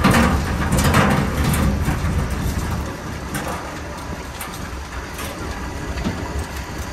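Work boat's engine running with a steady low rumble, under a loud rattling clatter of a wire crab pot being shaken and handled for the first couple of seconds, then only occasional clinks.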